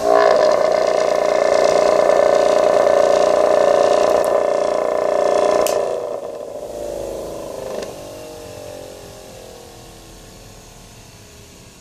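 Homemade disc sander's electric motor and sanding disc running at speed with a steady whine, then winding down from about six seconds in, the whine falling in pitch and fading as the disc coasts.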